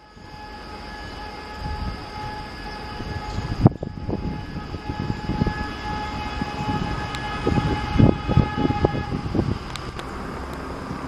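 Vande Bharat Express (Train 18) sounding a long, steady multi-tone horn as it approaches at speed; the horn stops about nine seconds in. A sharp click comes about four seconds in, and low rumbling and thuds from the oncoming train build in the second half.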